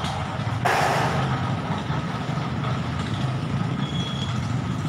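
Road traffic: a steady low engine rumble from vehicles, with a short hiss about a second in.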